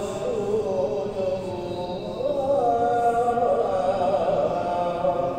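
Melodic Islamic chanting by a single voice, with long held notes that bend slowly up and down in pitch, in the style of a call to prayer or Qur'an recitation at the start of prayer.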